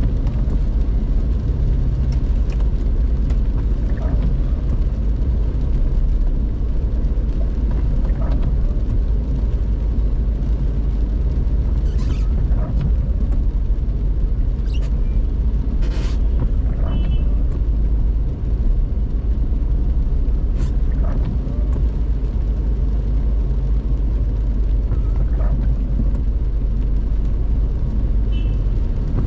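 A car driving on a wet road in the rain, heard from inside the cabin: a steady low rumble of engine and tyres. Scattered short ticks and a couple of brief high beeps sound over it, one about halfway through and one near the end.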